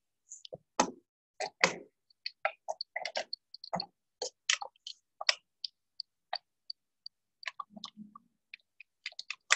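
Irregular light clicks and taps of tools and fittings being worked at a diesel engine's inline fuel injection pump while air is bled from the fuel system, heard through a video call that cuts out between sounds.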